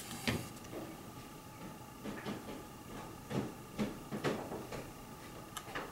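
Faint handling noise: about half a dozen soft knocks and rustles as a scrap sheet of watercolour paper is set down and a brush dabs a brown test mix onto it.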